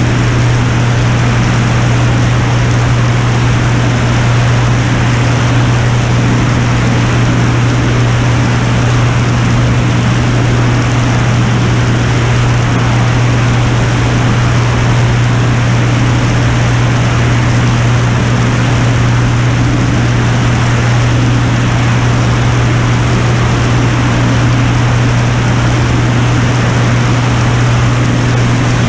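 Piper Turbo Saratoga's turbocharged Lycoming six-cylinder engine and propeller running steadily in level flight: a constant low drone over an even rush of air.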